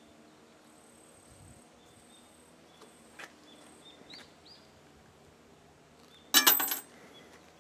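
A five-yen coin dropped into a black riveted metal shrine offertory box (saisen-bako), giving one short, loud metallic clink and rattle with a bright ring, about six seconds in.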